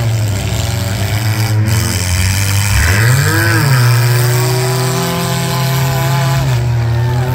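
Engines of compact demolition-derby cars revving hard under load, a high, buzzy note whose pitch dips and climbs back about three seconds in, then holds steady.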